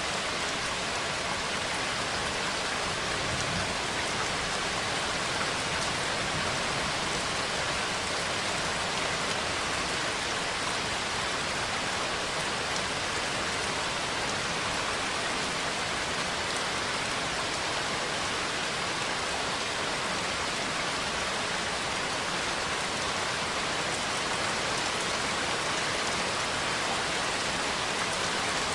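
Steady, heavy rain falling, an even hiss with no thunder in this stretch.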